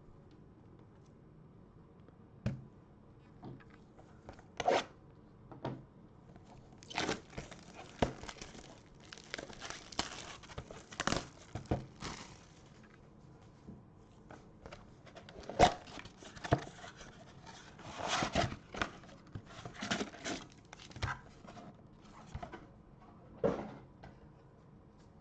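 Baseball card packs being torn open: wrappers tearing and crinkling in irregular bursts, with scattered sharp taps and clicks in between.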